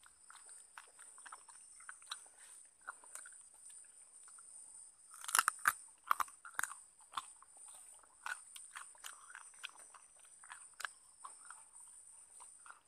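Irregular crisp crunches and crackles, densest about five to seven seconds in, over a steady high-pitched drone of forest insects.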